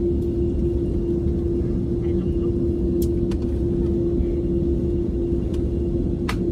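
Steady drone of an airliner cabin, a low rumble with a constant hum running through it, broken by a few faint clicks.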